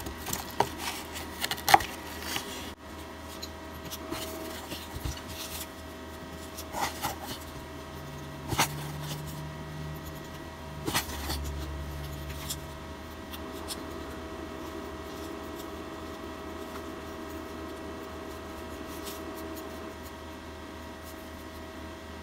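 Light taps, clicks and scrapes of small hand work on a wooden lure at a table, with a thin metal pick pressing baking soda and super glue into the lure's weight cavity. The taps thin out after about twelve seconds, leaving a faint steady hum.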